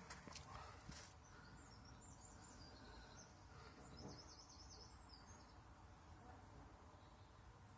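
Near silence, with faint bird chirps and trills in two short spells over a low background hum.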